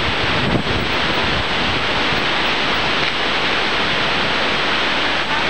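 Steady wind rushing across a camcorder's microphone, a loud even hiss.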